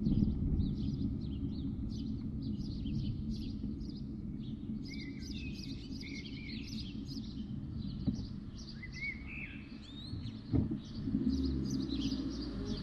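Many small birds chirping in quick, repeated short calls, with a few rising whistled notes midway, over a steady low rumble. A single short knock comes about ten and a half seconds in.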